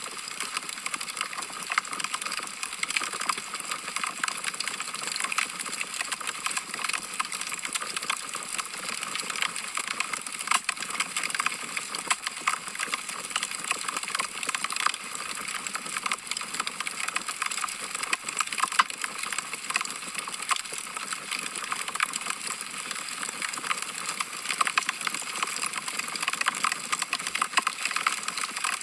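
Wood fire crackling steadily, logs burning in a fireplace: a dense, irregular run of small pops and snaps over a soft hiss.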